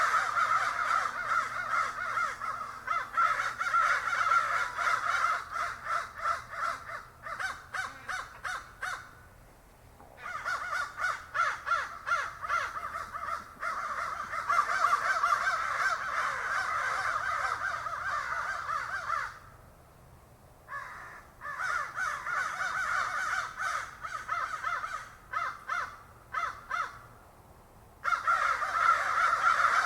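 Crows cawing, many calls overlapping at once, with brief lulls about nine seconds in, around twenty seconds, and shortly before the end.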